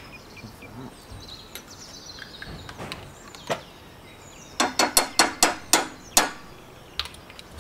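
A quick run of about seven sharp knocks over a second and a half, a few fainter clicks before it: a small glass whisky bottle knocked against the rim of a frying pan as it is emptied into a sauce.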